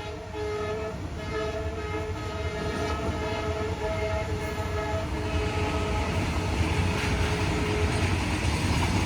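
WDG-4 diesel locomotive sounding its multi-note horn in several short blasts over the first five seconds. Then the rumble and rattle of the locomotive and its BTPN tank wagons grow louder as the train comes past.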